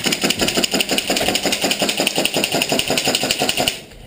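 Airsoft electric rifle (AEG) firing a long full-auto burst: a rapid, even rattle of shots that runs nearly four seconds and stops just before the end.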